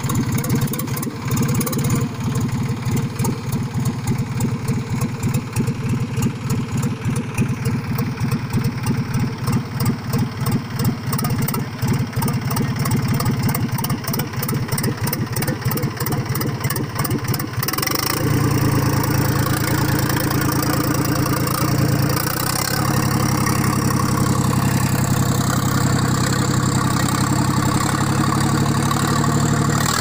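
Diesel engine of a TAFE tractor running steadily as it pushes soil with a front-mounted dozing blade; about eighteen seconds in the engine note becomes louder and steadier.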